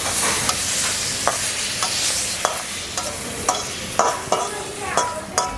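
Food frying in a pan with a continuous sizzle, while a ladle or spatula stirs it, scraping and knocking against the pan every half second or so.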